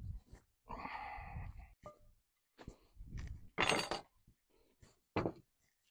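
Table-setting handling sounds: a few knocks and rustles, with a sharp clink a little past halfway as a knife and fork are set down on a wooden table.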